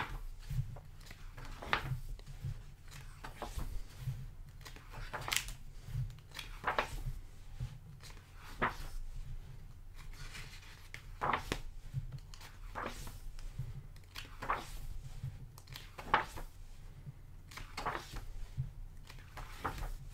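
Pages of a thick hardcover art book being turned by hand one after another, a short papery swish about every one to two seconds.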